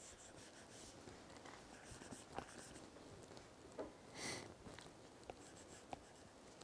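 Very faint taps and strokes of an Apple Pencil's tip on an iPad's glass screen: a few soft, scattered ticks, with a brief rustle about four seconds in.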